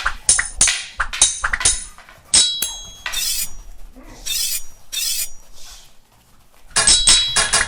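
Added metallic clanging sound effects, sharp strikes with a short ring, in quick succession; in the middle, a few longer swishing whooshes take over before the rapid clangs return near the end.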